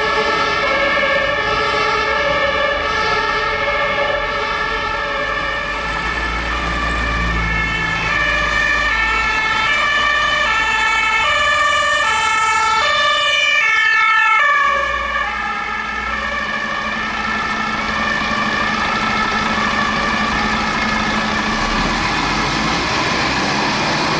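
German two-tone emergency-vehicle sirens (Martinshorn), more than one sounding at once, alternating high and low. The loudest passes and cuts off about two-thirds of the way in, its pitch sliding down, leaving a fainter siren and the drone of a vehicle engine.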